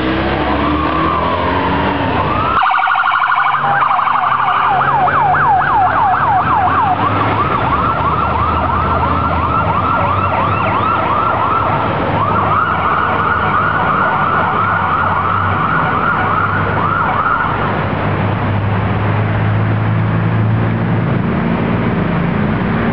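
Police vehicle electronic sirens: a slow wail for the first couple of seconds, then a fast, rapidly repeating yelp that stops about eighteen seconds in. Vehicle engines and traffic rumble underneath, and take over once the sirens stop.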